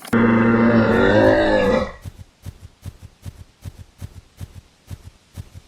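A camel call sound effect: one loud, low, wavering call lasting about two seconds. It is followed by a series of light taps, about two or three a second.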